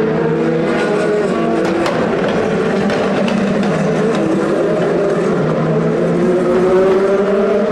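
Several racing car engines running together at low revs, their pitches overlapping and drifting slowly; near the end one engine's pitch rises as it picks up speed and grows a little louder.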